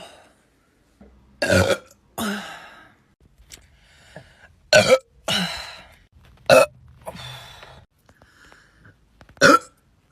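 Women burping: four short, loud burps a couple of seconds apart, each followed by a softer, breathier sound.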